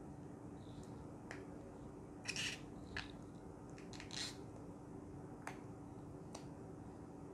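A clear plastic protective case being pressed and snapped onto the plastic back of a Samsung Galaxy A52: a few quiet clicks and two short, louder plastic rustles, over a faint steady hum.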